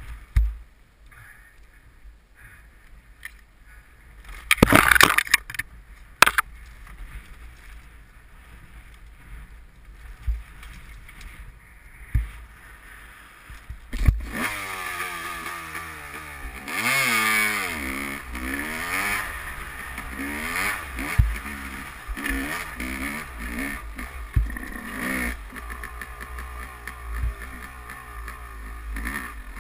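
Yamaha YZ250 two-stroke dirt bike engine. For the first half the engine is not heard: there are only scrapes and clicks, and a loud rush of noise about five seconds in. From about halfway the engine runs and revs up and down, its pitch rising and falling with the throttle.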